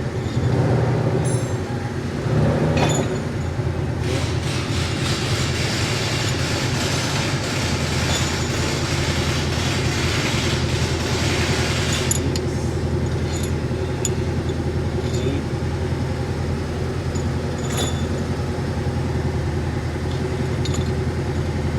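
Steady low mechanical hum from a running motor or engine, with a louder rushing noise for several seconds in the first half. A few light metallic clinks of hand tools come in the second half.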